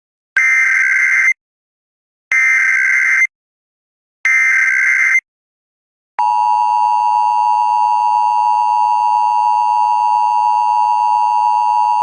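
Emergency Alert System tones: three one-second bursts of SAME digital header data about two seconds apart, then, about six seconds in, the steady EAS two-tone attention signal begins.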